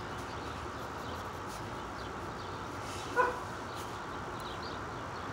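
Steady outdoor background noise with one short, pitched animal call about three seconds in, the loudest sound in the stretch.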